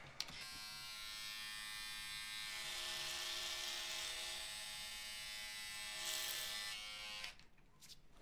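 Electric hair clipper starting with a click and buzzing steadily as it is run over a man's scalp, then stopping suddenly about seven seconds in.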